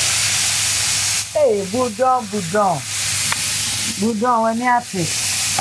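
Whole tilapia deep-frying in hot oil: a loud, dense sizzle for about the first second, then a quieter sizzle under a woman's voice in two short stretches, with a single click in between.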